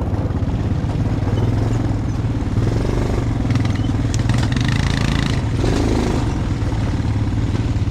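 A vehicle engine running steadily with a low hum, as heard while riding.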